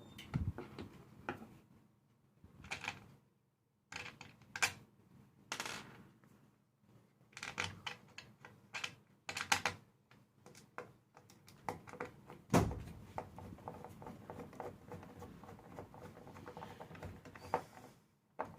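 Irregular plastic clicks, taps and rattles of a MIDI keyboard's key sections being handled and fitted back in place, with one louder knock about twelve seconds in.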